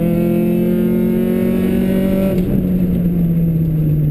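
Rally car engine heard from inside the cockpit at stage speed. Its pitch drops at the start as the driver changes gear, climbs slowly, then dips again about two and a half seconds in and holds steady.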